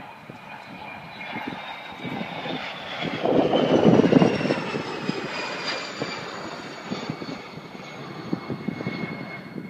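Twin-engine business jet flying past low and climbing away. Its engine noise builds to a peak about four seconds in and then fades, while the turbine whine slides down in pitch as it goes by.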